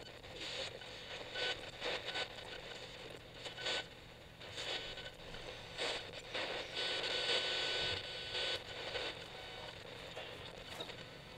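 Old radio giving only static as it is tuned: a hiss with irregular crackles and surges, swelling louder for a stretch about seven seconds in, with no station coming through.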